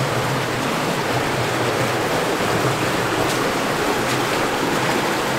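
Underground cave stream flowing, a steady rush of water.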